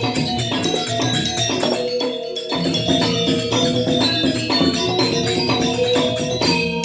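Balinese gamelan semar pagulingan playing: bronze metallophones struck in quick, dense patterns, their notes ringing over one another.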